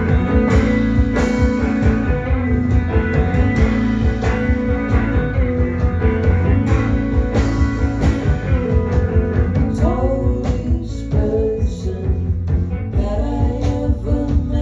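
A live band playing a rock song: guitar, bass and drums, with singing in the later part.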